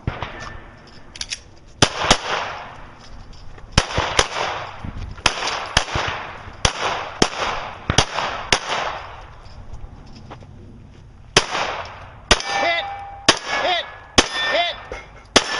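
A semi-automatic pistol firing strings of quick shots, each a sharp crack with an echoing tail, with a pause of about two seconds partway through. Near the end the shots are followed by short metallic rings from hits on steel targets.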